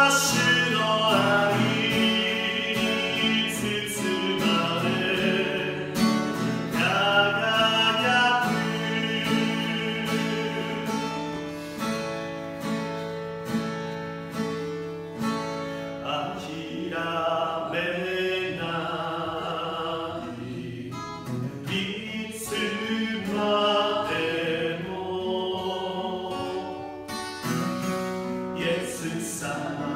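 A man singing a Japanese worship song while strumming an acoustic guitar with a capo.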